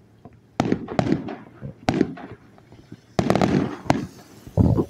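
Fireworks bursting: a string of sharp bangs about half a second in and near two seconds, a dense rapid cluster a little past three seconds, and a deeper boom near the end.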